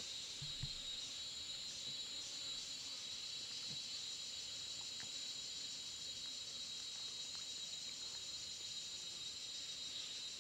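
Steady chorus of insects, a constant high-pitched drone with a second, higher band above it, faintly pulsing for the first few seconds.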